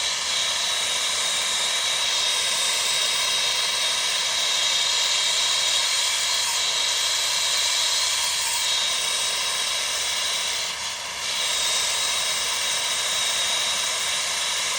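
Gas torch flame burning with a loud, steady hiss, heating the probe of a water heater's temperature and pressure relief valve. The valve stays shut past 220 degrees, which the plumber takes for a seized valve.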